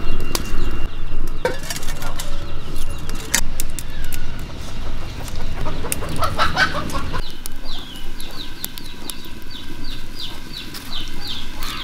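Chickens clucking and calling. A low rumble with scattered clicks runs under them for the first several seconds.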